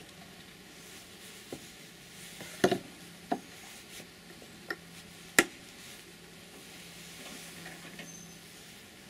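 Wooden beehive frames knocking and scraping against the hive box as a frame is set back in and the next is pried loose with a metal hive tool. There are a handful of short sharp clicks and knocks over a faint steady hum, the loudest about two and a half and five and a half seconds in.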